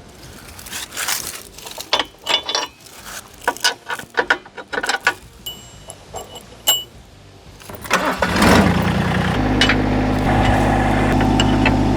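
Massey Ferguson GC1725 sub-compact tractor's diesel engine being started: scattered clicks and knocks and a couple of short high beeps, then the starter cranks about eight seconds in and the engine catches and settles into a steady idle.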